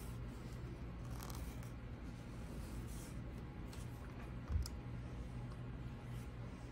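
Light rustling and clicking as quilting fabric is handled on the table, over a steady low drone of lawn cutting outside. About four and a half seconds in, a single dull thump as the steam iron is set down onto the fabric on the wool pressing mat.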